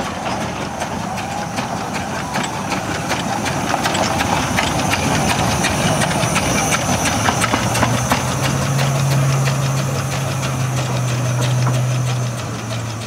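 Small 600 mm narrow-gauge steam locomotive moving slowly past: rapid clanking of its rods and valve gear with steam hissing, loudest as it passes and easing as it moves away. A steady low hum comes in about halfway through.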